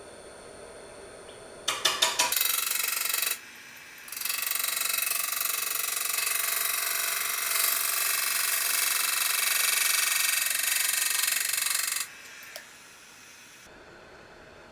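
Turning tool cutting into a cottonwood platter spinning on a wood lathe: a few rattling knocks as the tool meets the wood, a short cut, then a loud screeching, ringing cut for about eight seconds that stops suddenly. The lathe's motor hums steadily underneath.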